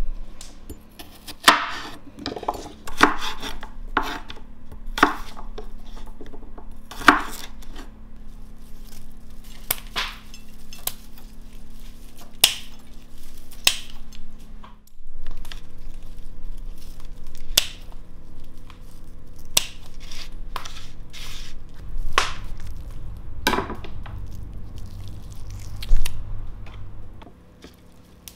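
Kitchen prep: irregular sharp clicks and knocks of garlic cloves, scissors and a knife being handled on a wooden cutting board, with scissors snipping rosemary sprigs.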